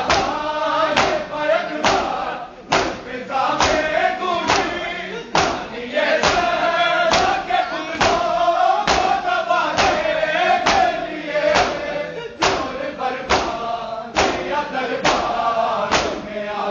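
Men's voices chanting a noha lament together, with the crowd's chest-beating (matam) slaps landing in unison on a steady beat, a little more than once a second.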